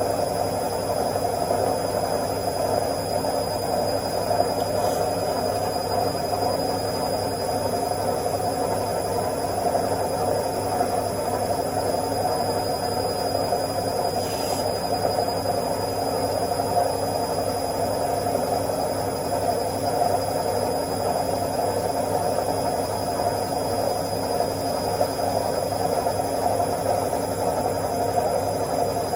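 Washing machine running its spin cycle: a steady, even whirring hum with no change in speed.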